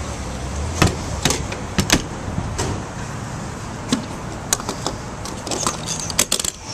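A dozen or so sharp, irregular clicks and knocks over a low steady rumble that drops away near the end.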